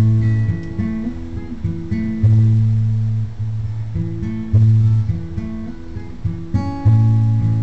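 Acoustic guitar played solo in an instrumental passage, with a strong low bass note struck anew about every two seconds and higher notes ringing over it.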